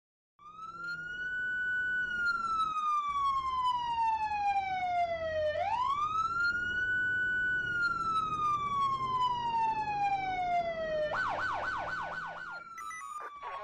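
Siren sounding a slow wail that rises and falls twice, then switching to a fast yelp of about four cycles a second near the end before falling away, with a few short high chirps.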